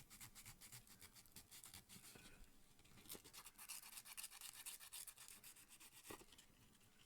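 Faint, quick scratching strokes of 150-grit sandpaper rubbed across a fingernail, shaping a glued split nail to its contour.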